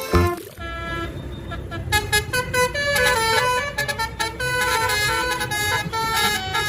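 Toy bus's 'telolet' horn sounding a quick tune of changing notes.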